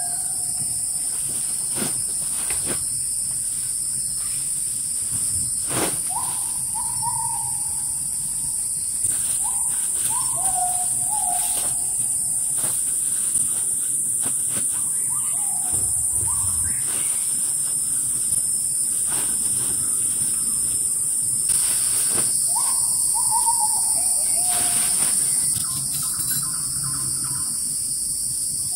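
Forest ambience: a steady high-pitched insect drone throughout, swelling for a few seconds near the end, while a bird repeats a short call of falling notes every few seconds. Scattered light rustles and clicks come from the nylon flysheet being handled.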